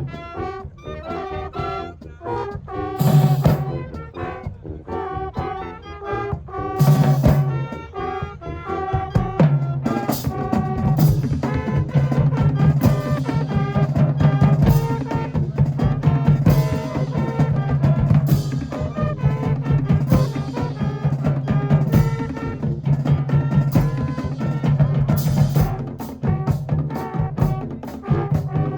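High school marching band playing: brass chords punctuated by cymbal crashes about 3 and 7 seconds in, then from about 10 seconds the drumline keeps a steady fast beat under held low brass.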